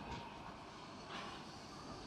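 Faint hiss of steam from a standing steam locomotive, with two brief, slightly louder hisses about a second apart.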